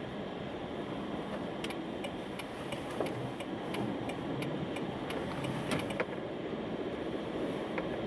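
Car driving on a snow-covered road, heard from inside the cabin as a steady road and engine noise. From about a second and a half in until about six seconds, a turn signal ticks at an even pace, about three clicks a second, as the car turns.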